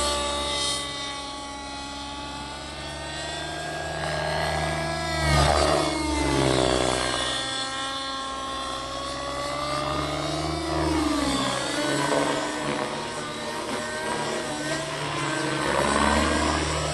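Miniature Aircraft Fury 55 radio-controlled helicopter in flight, its OS 50 two-stroke glow (nitro) engine with Hatori muffler running with the rotor. The engine note rises and falls in pitch as it manoeuvres. It swells loudest about five seconds in, and the pitch then sweeps down.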